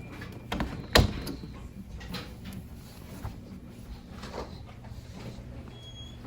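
One sharp knock or bang about a second in, with a smaller knock just before it, followed by scattered softer clicks and knocks.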